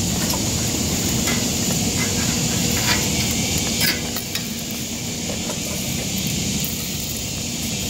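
Steady outdoor background noise with a high hiss and low rumble, over a few faint soft clicks and knocks of a smoked pork butt being handled and pulled apart with rubber-gloved hands on a wooden cutting board.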